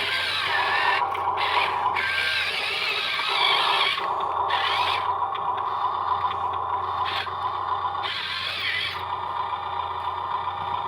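Small electric geared motors of radio-controlled construction toys whining, switching on and off in short runs of one to three seconds, with some scraping.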